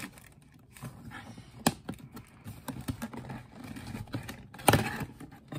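Fingers tapping, scraping and clicking on a white shoe box's lid while working to pry it open, a run of light irregular clicks and rustles. A sharper snap comes about a second before the end.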